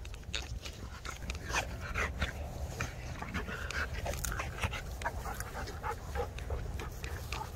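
Rottweilers rolling on their backs in the grass, panting, with many short irregular scuffs and rustles over a steady low rumble.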